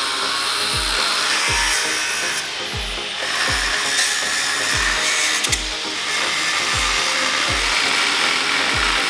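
Angle grinder cutting into rusty steel on a truck axle, a steady harsh grinding hiss. Background music with a steady kick-drum beat runs under it.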